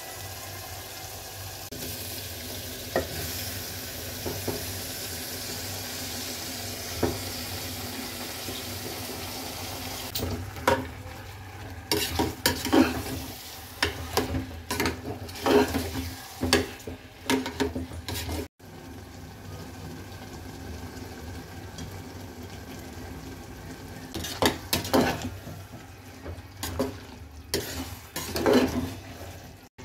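Food frying in oil in an aluminium pressure cooker, with a steady sizzle. A steel spatula scrapes and clinks against the pot in quick runs of stirring, about a third of the way in and again near the end.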